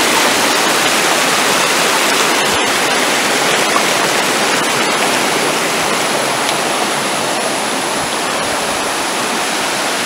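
Steady rush of water from a shallow rocky stream tumbling over stones in small cascades, with a waterfall just upstream. A split-second dropout about two and a half seconds in.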